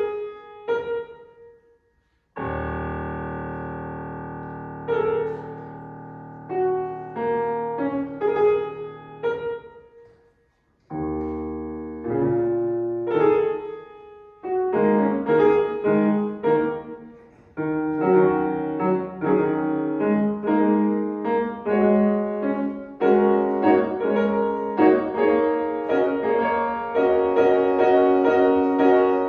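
Solo piano playing. Twice it falls nearly silent and then strikes a deep chord that rings on. From about halfway through it moves into a busier passage of quick notes.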